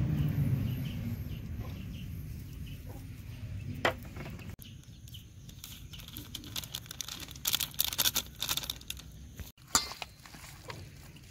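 Hand kneading raw mutton pieces with spices in a steel bowl: scattered short, sharp wet sounds, coming thick and fast between about seven and nine seconds in. A low rumble fades away over the first two seconds.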